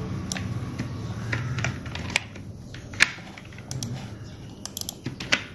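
Scattered clicks of a computer mouse and keyboard while text is being selected and copied: about a dozen separate sharp clicks, the loudest about three seconds in and a quick cluster near the end.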